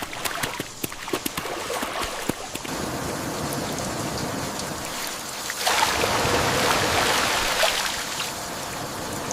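Heavy rain falling steadily, with sharp drop impacts ticking in the first couple of seconds. The rain grows louder about six seconds in, then eases slightly.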